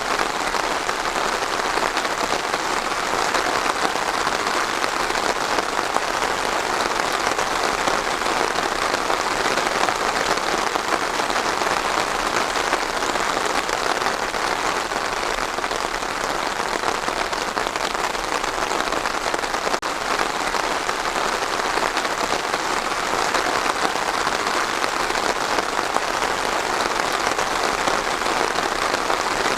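Steady rain falling on a hard surface, an even, dense patter that neither swells nor fades.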